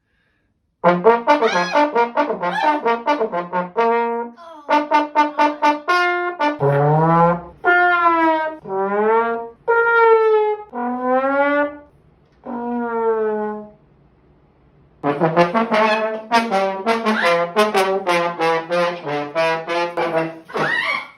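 Brass horn notes, trombone-like. Quick runs of short notes come first, then a string of long notes that bend up and sag down in pitch, a brief pause about two-thirds of the way in, and more quick runs of notes near the end.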